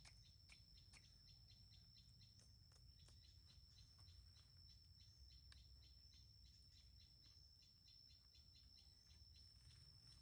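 Near silence with faint chirping: a steady high thin whine under quick, faint chirps or ticks, a few a second.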